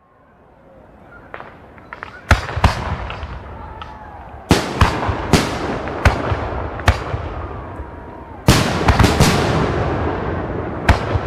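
Fireworks bursting: sharp bangs every second or so over a continuous background of distant bursts, fading in over the first two seconds, with a quick cluster of loud bangs about eight and a half seconds in.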